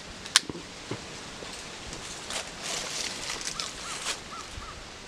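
A sharp click, then a soft rustling hiss as the forge fuel is lit and catches only weakly, with no whoosh. Near the end a bird calls a quick run of short chirps.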